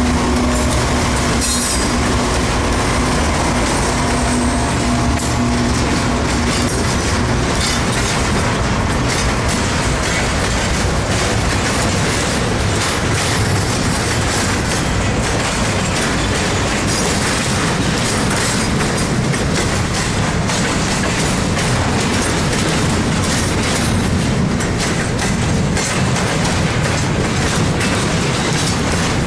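Double-stack intermodal freight train rolling past: the container well cars' wheels clacking over the rail joints in a steady, loud stream. A steady diesel engine hum from the trailing BNSF locomotive fades out in the first six seconds or so.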